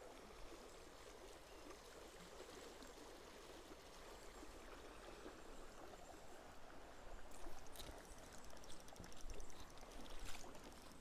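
Shallow river running over stones, a steady rush of flowing water. From about seven seconds in, a fast run of fine ticks from a spinning reel being wound and handled.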